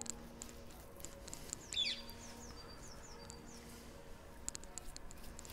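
A songbird calling: a quick falling whistle about two seconds in, then a run of short downward-slurred chirps. Faint scattered ticks of coarse salt grains landing on raw steak.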